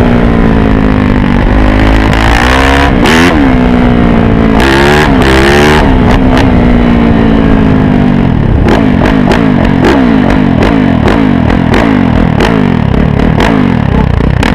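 Small dirt bike engine heard close up from the rider's helmet, revving up and falling back several times as the rider shifts and turns. From about eight and a half seconds in it runs at a steadier, rougher speed with a rapid run of sharp clicks or pops over it.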